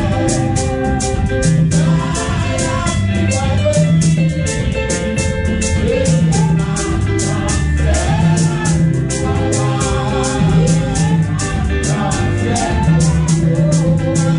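Gospel worship song: several voices singing over band accompaniment with guitar and bass. A steady high percussion tick keeps the beat at about four a second.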